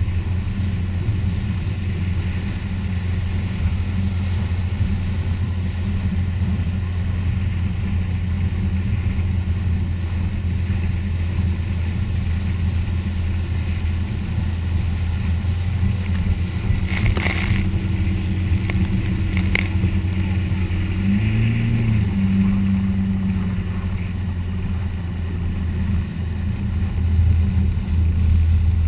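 Boat engine running steadily under way, with rushing wind and water. The pitch briefly rises and falls about two-thirds through, and the wash gets louder near the end as spray reaches the bow.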